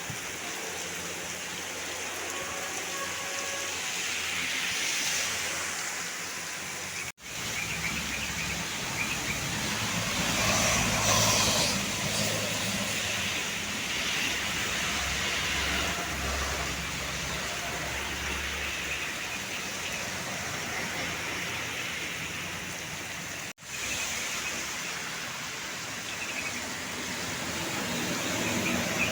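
Roadside traffic noise with a heavy vehicle's engine rumbling past in the middle, the sound broken twice by abrupt cuts.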